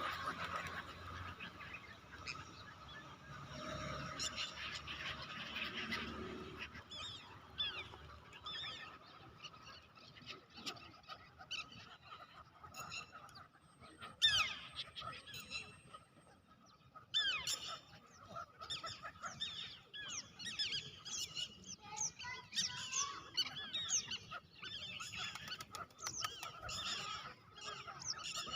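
Birds calling: many short chirps and calls overlapping, growing denser through the second half, with one louder call about halfway through.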